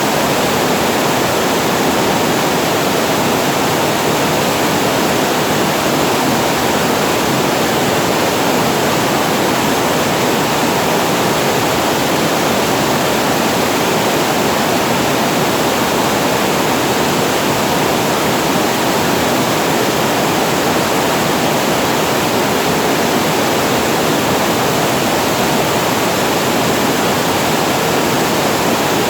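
Water falling over a reservoir weir: a steady, unbroken rush of falling water that does not change in level.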